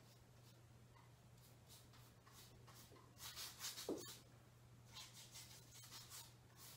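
Faint strokes of a paintbrush laying acrylic paint on canvas, short strokes in small clusters, loudest about halfway through, over a low steady hum.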